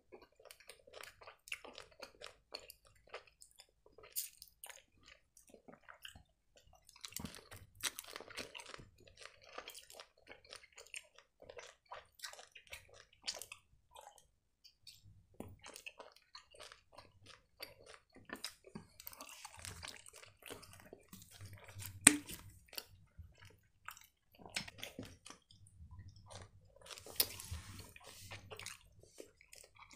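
Close-miked chewing of soft gummy worm candy: faint, scattered mouth clicks and smacks, with one sharper click about 22 seconds in.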